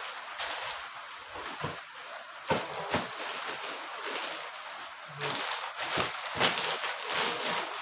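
Plastic packaging crinkling and rustling as wrapped packs are pulled out of a cardboard carton and handled. There are a few sharp crackles, and the handling gets louder about five seconds in.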